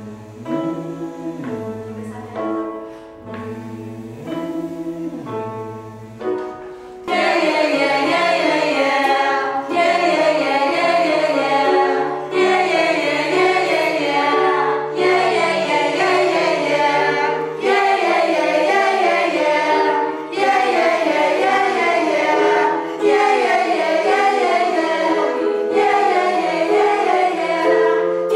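Electronic keyboard playing a short up-and-down scale pattern, then about seven seconds in a group of voices comes in, singing vocal warm-up scales together over the keyboard. The sung pattern repeats every two to three seconds with brief breaks for breath.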